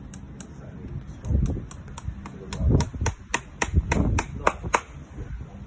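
A farrier's hammer driving iron horseshoe nails into a hoof: a quick run of sharp metal taps, about four a second, with a few heavier blows among them.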